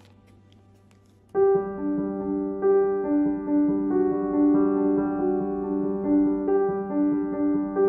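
Piano music starts about a second in, after a faint opening: a slow melody over a steady low note.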